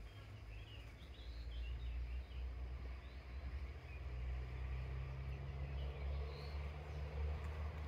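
Outdoor ambience: an uneven low rumble on the microphone with a few faint bird chirps, a cluster about a second in and one more near the end.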